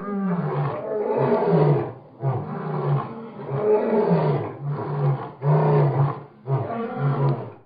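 Ethiopian lion roaring: a run of about five low roars, each one to two seconds long, with short breaks between them.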